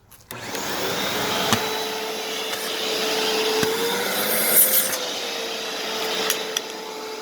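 Vacuum cleaner switched on just after the start and running steadily, a motor whine over rushing air, as it is tested after being repaired and reassembled. A brief louder hiss of air comes about halfway through.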